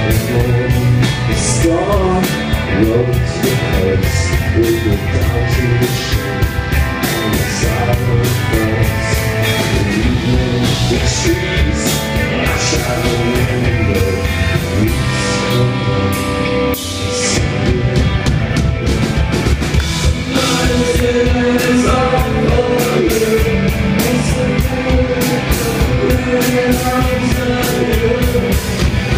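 Rock band playing live, with drums, electric guitar and bass under a man singing into a microphone.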